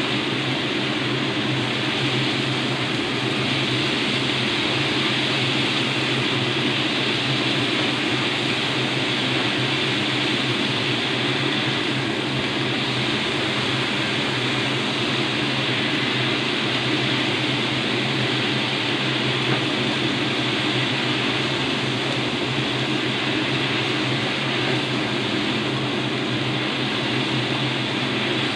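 Steady mechanical whirring of a running fan: a low hum with an even hiss over it, unchanging throughout.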